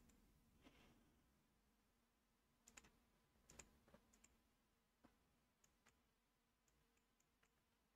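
Near silence broken by a few faint computer mouse clicks, scattered and irregular, the loudest in two quick pairs near three seconds in.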